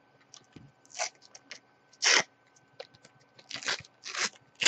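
A Panini sticker packet's foil wrapper being torn open and crinkled by hand: a handful of short crackles, the loudest about two seconds in.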